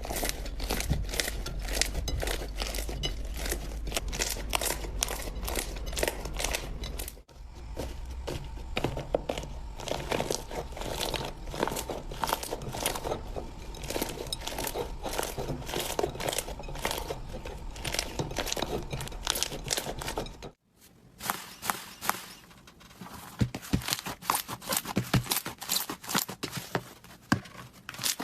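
Slime being squeezed, poked and stretched by hand, giving a dense run of crackling, crinkly pops and squelches. The sound changes abruptly twice, about seven seconds in and about twenty seconds in, as one slime clip gives way to the next.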